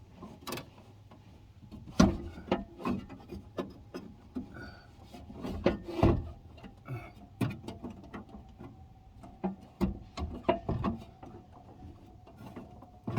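Irregular knocks, clicks and rubbing from hands and tools working at a car's rear door window and its trim, the loudest knocks about two seconds and six seconds in.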